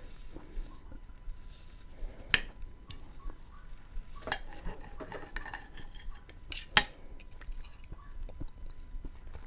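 Close-up eating sounds: a utensil clinking and scraping against a plate or bowl of beans, with a few sharp clinks, the loudest about seven seconds in, amid small wet mouth and chewing sounds.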